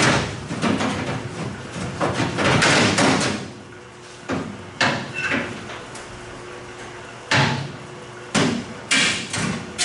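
Sheet steel of an early-model Ford pickup's inner wheel well being banged and worked loose by hand, its spot welds drilled out: a dense run of metallic bangs and scraping for about three seconds, then a handful of separate sharp knocks.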